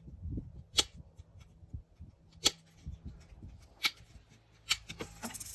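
Small objects being handled, with light rustling and four sharp clicks spread over the few seconds.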